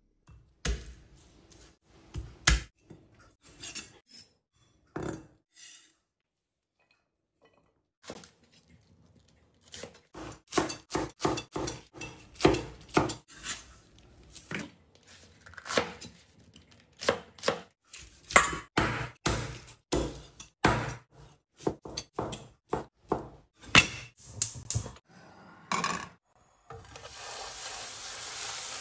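Kitchen knife cutting bok choy on a wooden cutting board: irregular knocks of the blade on the board, sparse at first, then in quick runs from about ten seconds in. Near the end, chicken pieces start sizzling in a frying pan with a steady hiss.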